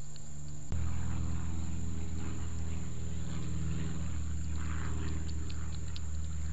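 A steady motor drone, a low hum with several even tones over it, starts abruptly about a second in and runs on, with faint scattered clicks above it.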